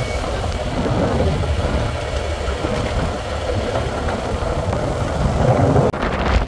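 Strong wind buffeting the microphone on a fishing boat at sea, with the boat's engine running underneath as a steady low rumble.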